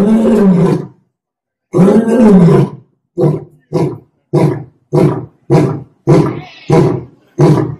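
Lion roaring: two long, deep roars, then a run of short roars about one every 0.6 seconds, the closing part of a roaring bout.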